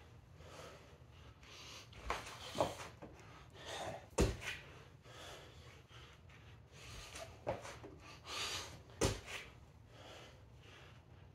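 Hard breathing between exercise reps, with about five sharp thumps of hands and feet on a rubber gym floor mat.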